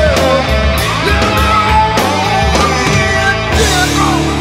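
Rock music with a drum beat.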